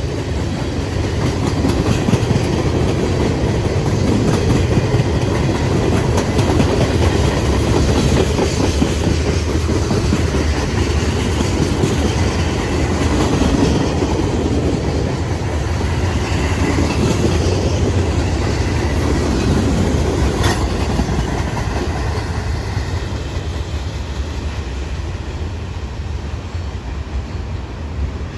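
Freight train cars rolling past, a steady rumble of steel wheels on rail with occasional sharp clicks, easing off a little in the last few seconds.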